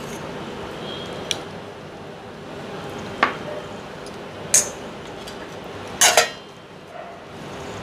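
Tableware clinking as food is served: a spoon and small cup knocking against a plate four times, a second or so apart, the last clink the loudest and a little longer.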